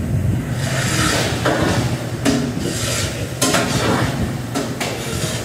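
Metal kitchen clatter: several sharp knocks and scrapes of utensils and steel cookware as the cook works the ground beef, over the steady drone of a commercial exhaust hood.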